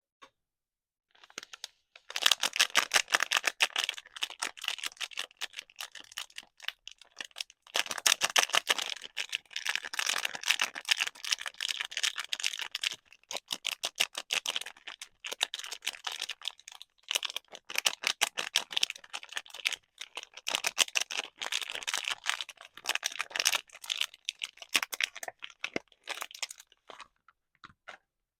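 Soap packaging being unwrapped and torn open by hand: a dense run of crinkling and crackling, with a few short pauses, thinning out near the end.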